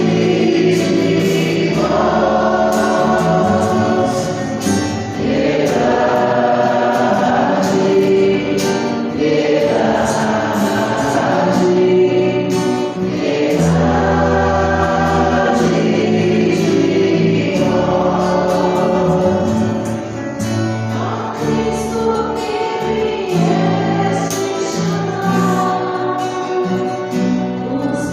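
A choir singing a Christian gospel song over musical backing, in phrases of about two seconds with held low notes underneath.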